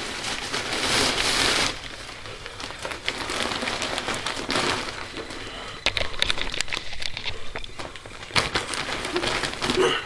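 Plastic carrier bag rustling and crinkling as wrapped presents are pulled out of it, with wrapping paper crackling; the loudest rustle comes in the first couple of seconds, with sharper crackles later.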